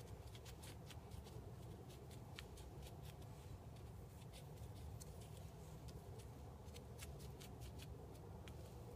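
Faint rustling and scattered small clicks of gloved hands greasing and handling a steel wrist pin over a piston and plastic sheet, over a low steady hum.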